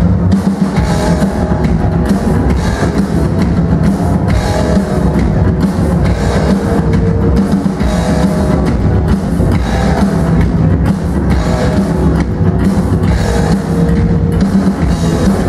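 Live rock band playing loudly: electric guitar over an upright double bass and a drum kit.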